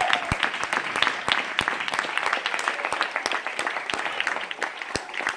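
Audience applauding, with one pair of hands clapping close by, sharper and louder than the rest. The applause slowly fades.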